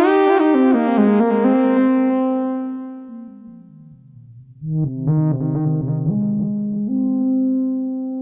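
Sequential Trigon 6 analog polysynth playing its 'All The Rave' preset: a run of notes stepping downward, growing duller and fading out about four seconds in, then a new phrase starting sharply with held low notes under it.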